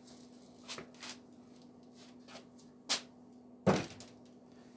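A few short, sharp knocks and clunks of things being handled and set down, the loudest about three and a half seconds in, over a steady low hum.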